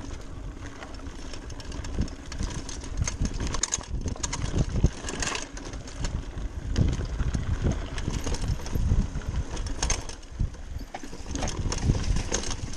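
Giant Talon 3 29er hardtail mountain bike rattling and knocking as it rides fast over a rough dirt trail, tyres crunching over roots and stones, with a steady low rumble of wind on the bike-mounted microphone.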